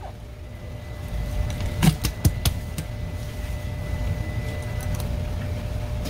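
Steady low machine hum, with a few sharp knocks about two seconds in: knife and fish striking a plastic cutting board as a black porgy is stabbed behind the gills to bleed it.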